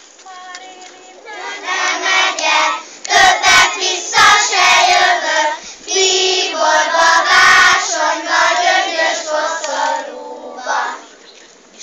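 A group of young children singing a song together, starting about a second in and stopping near the end, with a few thumps in the middle.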